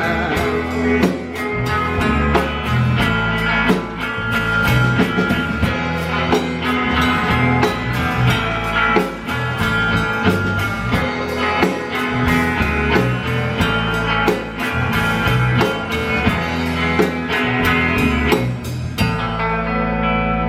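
Live rock band playing an instrumental ending with electric guitar, bass and drums at a steady beat; the drums stop about 19 seconds in, leaving a guitar chord ringing.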